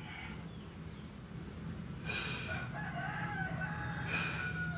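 A rooster crowing once, starting about two seconds in and lasting a little under three seconds, over a steady low hum.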